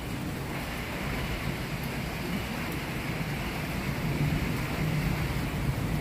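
Thunderstorm with heavy rain: a steady rush of rain and wind, under a low rumble that swells a little about four seconds in.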